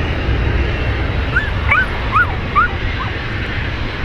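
Wind rumbling low and steady on the microphone. About a second in comes a quick run of six or seven short yelping cries from an animal, each one rising and falling in pitch.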